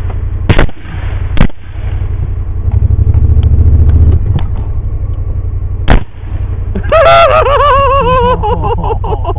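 Several rifle shots crack over a steady low engine drone, with a quick pair in the first second, another about a second and a half in, and one more about six seconds in. About seven seconds in, a hit hog squeals loudly for about a second and a half, its pitch wavering up and down.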